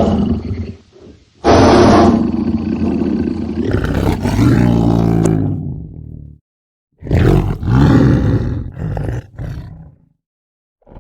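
Tiger roaring several times: a short roar, then a long one of about five seconds, then another of about three seconds.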